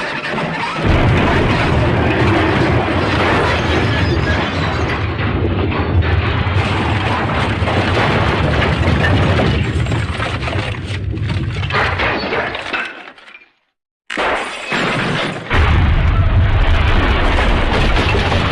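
Cartoon crash sound effect: a long, loud run of smashing and shattering over a heavy low rumble. It cuts out to silence briefly about thirteen and a half seconds in, then comes back just as loud.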